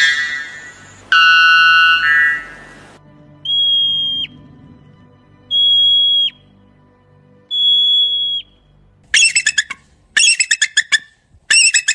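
A run of animal calls. A pitched, ringing call comes first, then three long steady whistles that each drop sharply in pitch at the end, then a fast series of short chattering calls.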